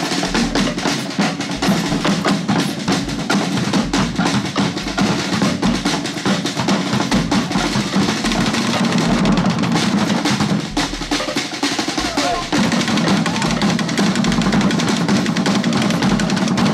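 Live Polynesian drumming from a seated drum group that includes a large barrel drum: a fast, dense beat that eases briefly about eleven seconds in, then picks up again.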